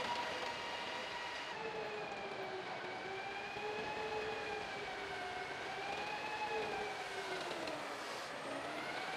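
M1 Abrams tank's gas turbine engine whining as the tank moves, a steady high whine whose pitch slowly wavers up and down and dips near the end.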